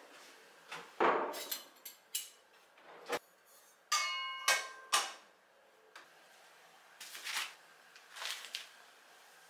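Frying pans and dishes being handled and set down, with a series of knocks and clatters. About four seconds in, one pan gives a brief metallic ring.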